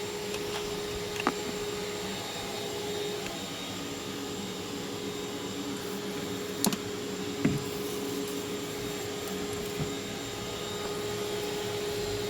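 Shop vac motor running steadily in reverse, blowing air into the exhaust through the tailpipe to pressurize it for a soapy-water leak test. It has a steady whine, with a few short knocks and clicks over it.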